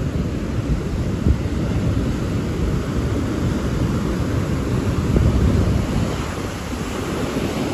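Wind buffeting the microphone over the steady rush of surf breaking on the shore.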